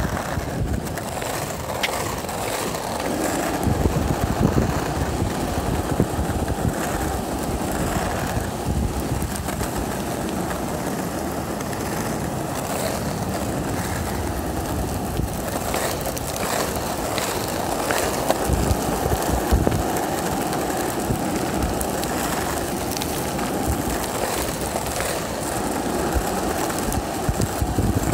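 Penny board's small wheels rolling on rough asphalt: a steady, gritty rumble, with occasional clicks.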